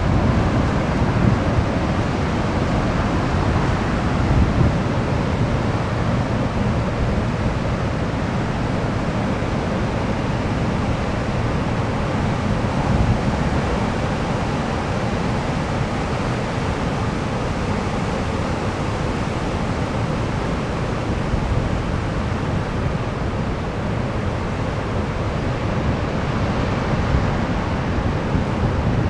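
Ocean surf washing in over a sandy beach and around rocks, a steady rush of breaking waves with gentle swells in level. Wind rumbles on the microphone underneath.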